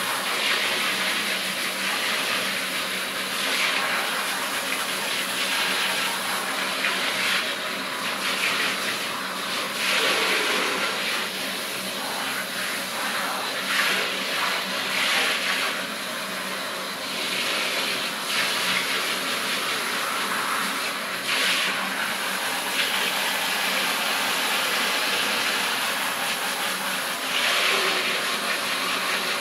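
Handheld shower sprayer running, its spray hissing and splashing over two pugs and into a filled bathtub. The hiss is steady, swelling and easing several times as the spray moves.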